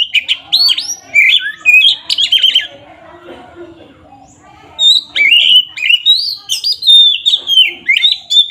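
Oriental magpie-robin singing a loud, fast, varied song of gliding whistles and chattering notes, in two bursts with a pause of about two seconds between them.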